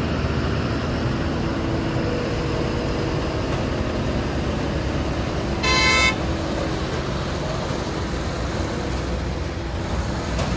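Heavy-haul truck's diesel engine running steadily, with one short vehicle horn blast about six seconds in.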